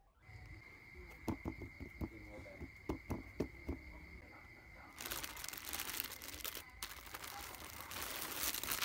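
Parcel being handled and opened: a few knocks and taps on a cardboard box in the first few seconds, then crinkling of clear plastic clothing bags from about five seconds in.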